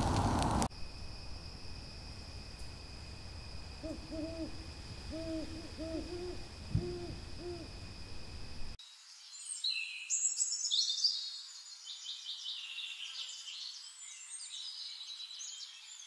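A run of short owl hoots about four seconds in, repeated quickly for a few seconds over a faint steady high tone. A campfire crackles briefly at the very start. From about nine seconds, songbirds chirp and sing.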